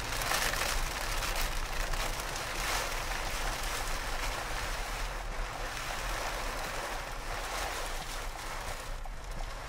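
Steady rush of heavy rain and wind against a vehicle, heard from inside the cab with the windshield wipers going, over a constant low rumble.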